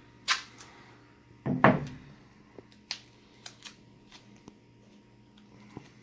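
Scattered knocks and taps from hands working a bundle of cardboard Roman candle tubes and their fuses during taping. The loudest is a double knock about a second and a half in, with lighter taps after it.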